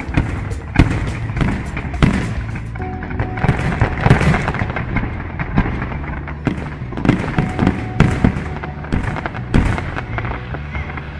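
Aerial fireworks display: a quick, uneven run of sharp shell bursts and crackling bangs, with music playing underneath.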